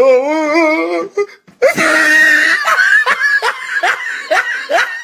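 A person laughing hysterically. It opens with a long wavering cry, then a shrill wheeze, then breaks into rapid bursts of laughter, about four a second.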